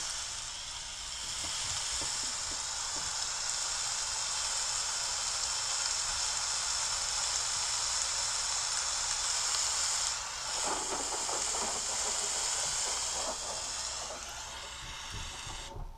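Rain sound effect from a lighting app, a steady hiss of falling rain played through a phone's speaker. It cuts off suddenly near the end as the sound effects are muted.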